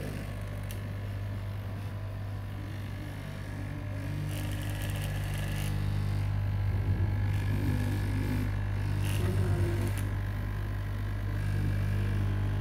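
Electric straight-knife cloth-cutting machine running steadily, its motor humming as the upright reciprocating blade cuts through a stack of T-shirt fabric layers. The sound grows a little louder about a third of the way in.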